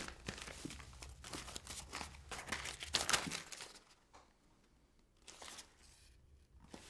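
Paper rustling and crinkling as dropped papers and belongings are gathered up by hand from a carpeted floor: a busy run of crackling handling sounds for the first three seconds or so, then it goes quiet apart from one brief rustle about five seconds in.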